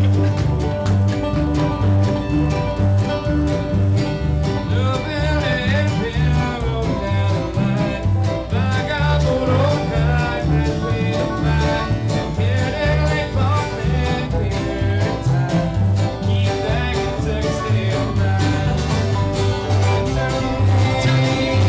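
A bluegrass band playing live: picked acoustic strings over a steady, pulsing bass beat.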